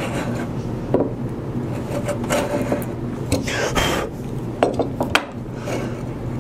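Hand router plane's blade paring the bottom of a stopped dado in white oak: a series of short scraping cuts, the longest a little past halfway, with a few sharp clicks, most of them near the end.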